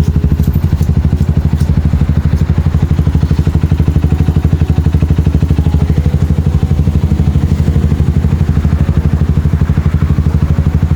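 Motorcycle engine idling steadily, with an even, rapid pulsing beat.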